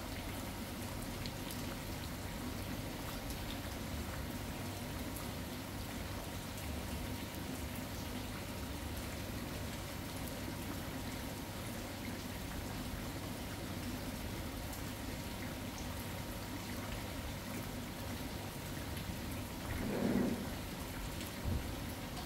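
Steady rain falling, an even continuous patter, with a brief louder swell near the end.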